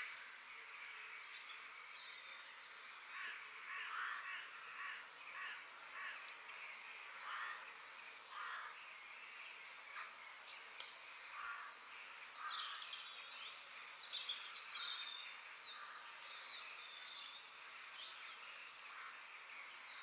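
Forest bird ambience: several birds calling in short repeated notes over a steady background hiss. A burst of higher, quicker chirps comes about two-thirds of the way through.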